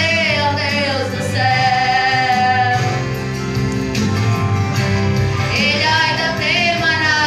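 A woman singing a Portuguese gospel song into a microphone, amplified over instrumental accompaniment, her held notes wavering with vibrato.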